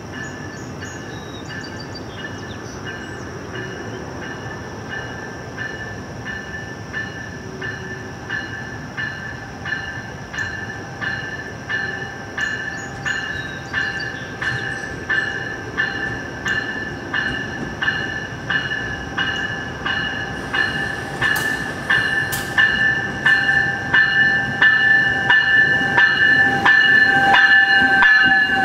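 VIA Rail Siemens Venture passenger train arriving slowly at a station platform, its bell ringing in a steady, even rhythm that grows louder as the train comes closer, with the rumble of the cars rolling past near the end.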